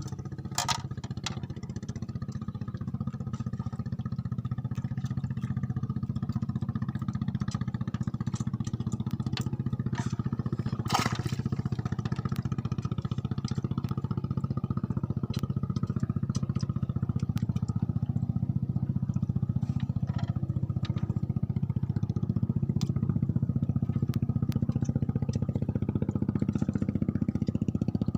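A small engine running steadily, slowly growing a little louder, with two sharp clicks, one near the start and one about eleven seconds in.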